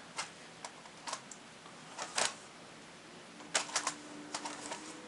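Light plastic clicks and taps from a replacement keyboard being handled and pressed into place in a Gateway NV53 laptop's deck. The clicks are scattered, with a quick cluster of several clicks about three and a half seconds in.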